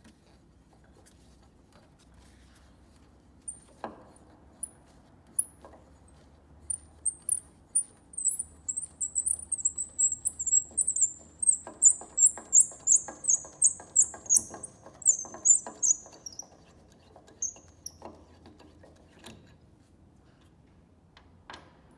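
Antique square tuning pin of an 1840s Erard piano being turned out of its wooden pinblock with a tuning lever, squeaking in a long run of short high chirps that come fastest in the middle and then thin out. A few light knocks of the tool sound in between.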